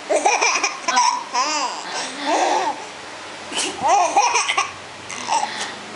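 A baby laughing in repeated bursts, set off by a woman's fake sneezes; sudden breathy sneeze-like bursts come at the start and again a little past halfway.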